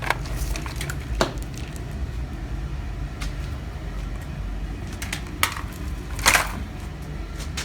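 Automotive wiring harness being handled and pulled apart: loomed wires and plastic connectors rustling and crackling, with a few sharp clacks, the loudest about six seconds in, over a steady low hum.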